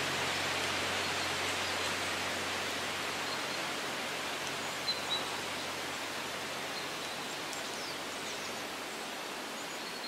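Wind rustling through tree leaves: a steady hiss that slowly grows fainter, with two brief high chirps about five seconds in.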